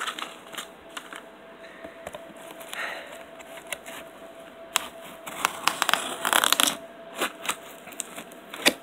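Hands working a cardboard shipping box and the paper taped over it: crinkling paper, scraping cardboard and tape, in irregular rustles and sharp clicks that get busier about halfway through.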